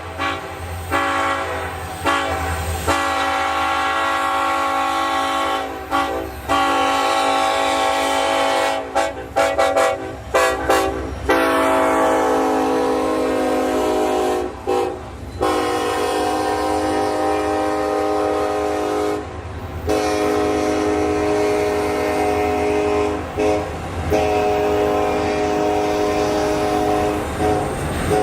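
Norfolk Southern locomotive's air horn blowing a long series of blasts: mostly long held chords broken by brief gaps, with a run of short toots about nine to eleven seconds in. A low locomotive rumble runs underneath.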